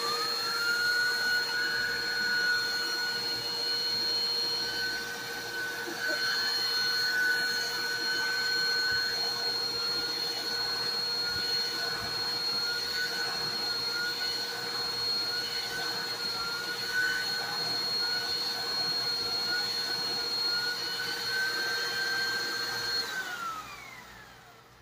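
Bissell CleanView Compact Turbo upright vacuum cleaner running with a high whistling whine while its hose-end turbo brush is worked over carpet, the pitch wavering slightly under the changing load. Near the end the motor is switched off and spins down with a falling whine.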